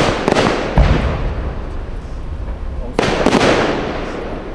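Aerial firework shells bursting: three sharp bangs within the first second and two more about three seconds in, each fading out in an echoing rumble.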